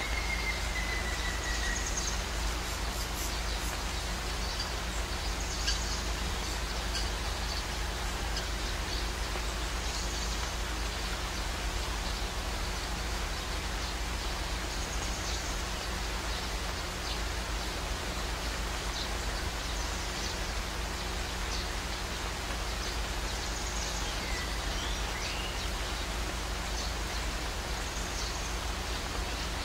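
Beef karahi masala frying in a steel karahi: a steady sizzling hiss with small scattered pops.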